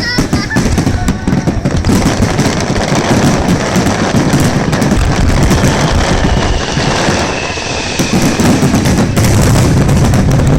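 Aerial fireworks bursting in a dense, rapid barrage: many sharp bangs and crackles running into one another over a continuous low rumble.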